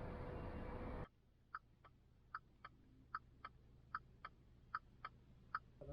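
Faint hiss that cuts off suddenly about a second in, followed by faint, even ticking in pairs, about one pair every 0.8 seconds.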